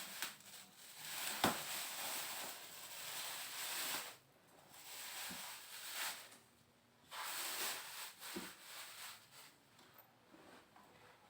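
Rustling and rubbing as the gaming PC case and its packaging are handled during unboxing, in stretches of a second or two, with a couple of sharp knocks.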